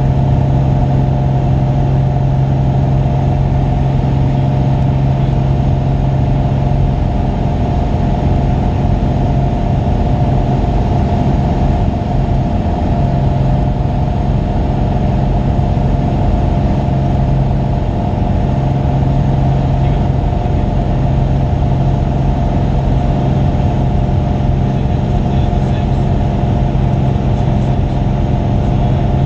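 Single-engine light aircraft's engine and propeller running steadily in flight: a constant low hum that holds the same pitch throughout.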